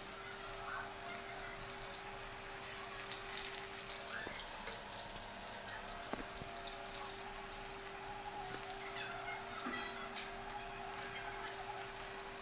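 Chicken pakoda pieces deep-frying in hot oil in a kadai: a steady sizzle with fine crackling and popping.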